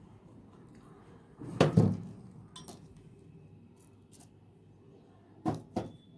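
Hard objects being handled and set down: a loud double knock about a second and a half in, a light click, then two more knocks near the end, with clinking like small metal parts.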